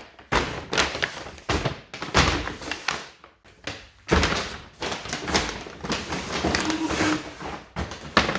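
Irregular knocks and thuds, roughly one a second, like things being handled and set down.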